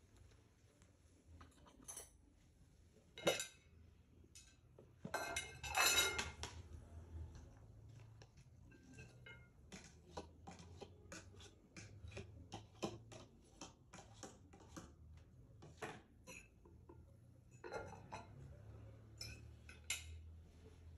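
Clinks and scrapes of a plate and a fork as cooked noodles are tipped out and served onto the plate, a few louder knocks early, then a run of quick small clicks through the middle.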